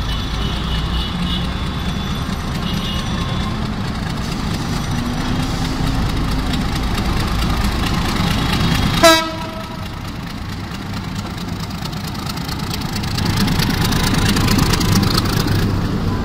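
Diesel locomotive engine running as it hauls a passenger train slowly past, with one short horn blast about nine seconds in. The coaches rolling over the tracks grow louder near the end.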